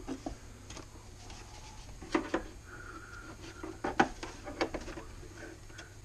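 Hard plastic vacuum cleaner housing being handled on a workbench: a scatter of knocks and clatters with some rubbing and scraping between them. The loudest knocks come in a cluster about two seconds in and again around four to five seconds in.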